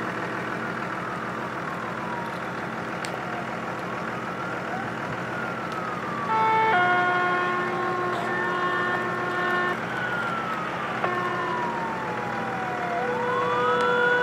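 Fire truck sirens wailing, rising and falling slowly, with two long blasts of a multi-tone air horn, about six seconds in and again about eleven seconds in, over the low rumble of the trucks.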